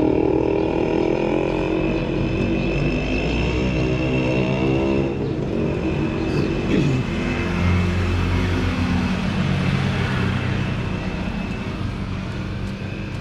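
A motor vehicle engine running close by, its pitch rising about four seconds in, then fading as it draws away near the end.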